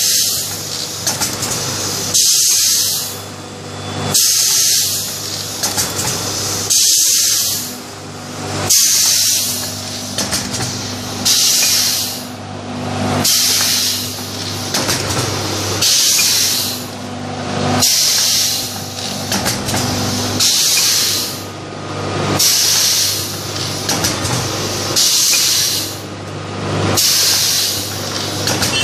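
Curled square paper baking cup forming machine running through its cycle: a hiss of compressed air released about every two seconds from its pneumatic cylinders, over a steady low machine hum.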